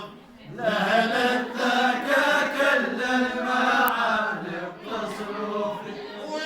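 A man singing an Arabic song in long, held notes that waver in pitch. There is a short breath-like gap about half a second in.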